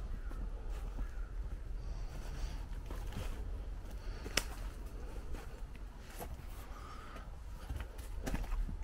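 Footsteps crunching faintly on leaf litter and broken brick rubble, with scattered clicks, the sharpest about four seconds in, over a steady low rumble.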